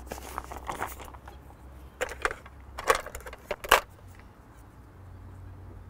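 Handling noises from a small plastic pot of pop-up baits being rummaged through: rustling and light rattling, then three short, sharp clicks in the middle of the stretch.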